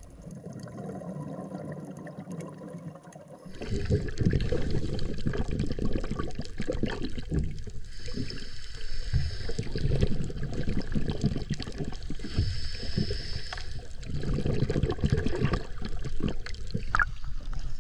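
Underwater sound of scuba divers at the surface beneath a dive boat: irregular bubbling and water movement, with two stretches of steady hiss around the middle. For the first few seconds there is only a quiet underwater background, then it turns louder.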